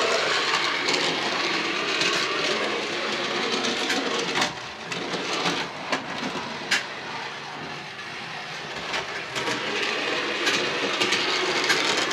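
OO-gauge model tram running round its track, a steady rattling run from its wheels and motor with sharp clicks here and there, quieter for a few seconds in the middle.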